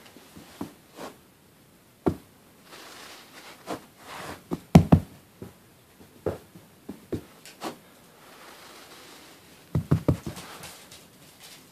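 Pet skunk stomping its front feet on carpet in play: irregular thumps, the loudest about five seconds in, and a quick run of them near the end.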